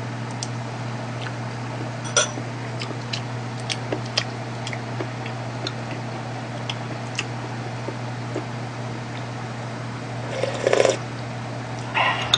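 Metal spoon clinking and scraping against ceramic bowls and an earthenware pot in scattered light clicks, with a louder clatter near the end, over a steady low hum.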